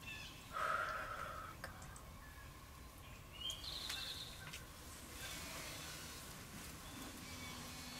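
Wild birds calling faintly over a steady hiss of light rain. There is a short, louder call about half a second in and a quick trilled song about three and a half seconds in.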